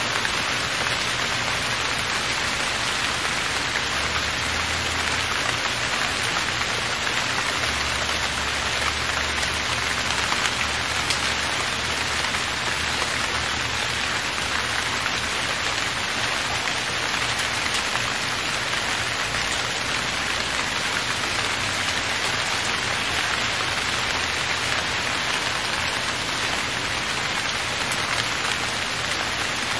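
Steady rain falling on dense leafy foliage: an even, unbroken hiss that neither builds nor eases.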